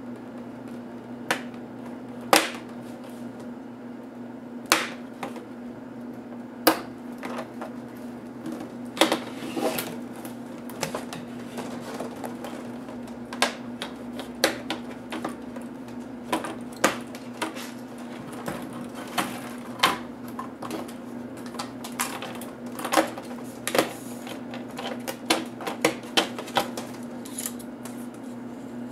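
Sharp plastic clicks and snaps, single and in quick clusters, as the clips of the HP G71 laptop's screen bezel are pried loose and the plastic is handled. A steady low hum runs underneath.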